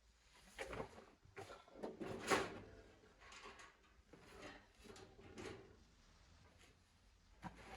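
Faint handling noises from the parts of a gas heater being moved about: a string of light knocks and rustles, the loudest about two and a half seconds in.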